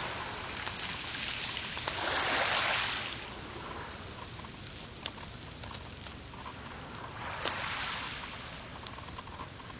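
Small waves washing on a shore, swelling twice about five seconds apart, with a few faint clicks.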